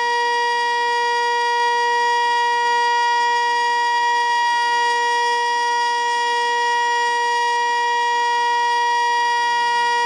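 ASC T-121 electronic outdoor warning siren sounding its alert signal: one steady, loud tone that holds the same pitch without rising or falling.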